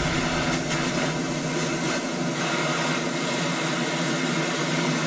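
Steady rushing hiss of a blowtorch flame heating a steel rocker shaft so that it expands for a greaser to be press-fitted.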